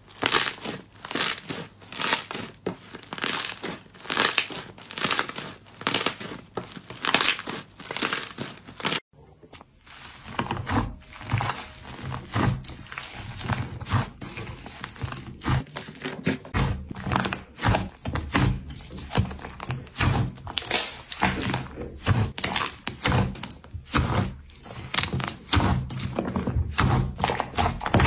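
Slime being pressed and squeezed by hand, crackling with each press at about two presses a second. After a cut about nine seconds in, a second slime gives quicker, denser crackles over a faint low hum.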